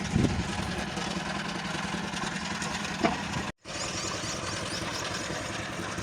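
Engine of a site concrete mixer running steadily while lean concrete is poured, with a couple of sharp knocks, one near the start and one about three seconds in. The sound cuts out for a moment just after halfway, then resumes.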